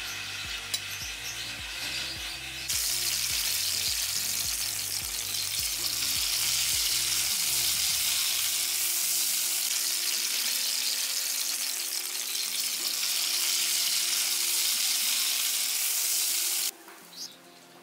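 Grated cassava patties frying in oil in a cast-iron skillet, sizzling steadily. The sizzle gets much louder about three seconds in and cuts off suddenly near the end.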